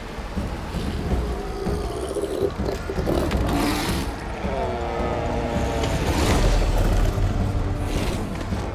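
Cape fur seal bulls growling and roaring as they fight, over the steady din of the breeding colony, with one long pitched roar about four and a half seconds in.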